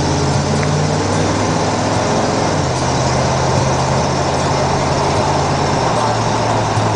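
1973 Ford Mustang Mach 1's V8 engine running steadily at cruise, heard from inside the cabin over a wash of tyre and wind noise.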